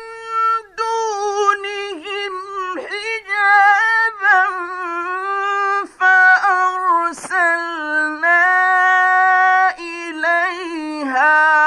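A man's high voice chanting Quran recitation in the melodic mujawwad style, drawing syllables out into long held notes with wavering ornaments between them.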